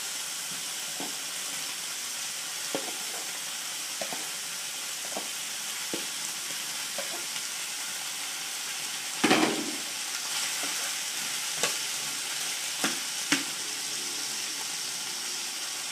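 Strips of liver frying in hot oil in a metal frying pan, a steady sizzle, as sliced onion is added. Light knocks of a utensil on the pan come every second or so, with a louder clatter about nine seconds in.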